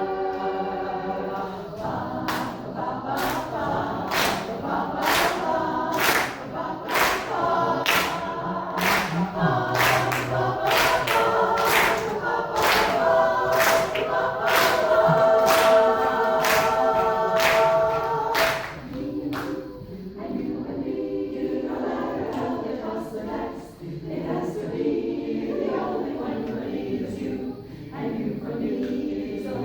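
Vocal group singing a cappella in close harmony, with a sharp percussive beat about twice a second that stops around two-thirds of the way through, leaving the voices alone.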